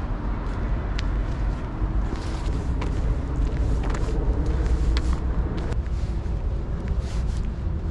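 Steady low outdoor rumble, with light footsteps and scattered clicks and swishes of dry grass and brush as someone walks along a canal bank.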